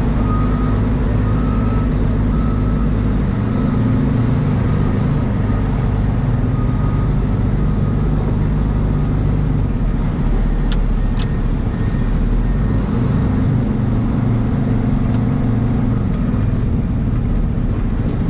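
Dump truck's diesel engine running steadily as the truck drives off, its pitch shifting as it picks up speed. A backup alarm beeps over the first several seconds, fading away, and two sharp clicks come about eleven seconds in.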